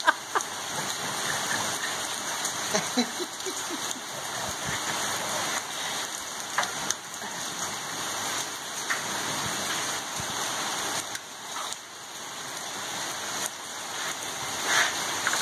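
Steady rain falling, with a few short knocks scattered through it, the loudest near the end.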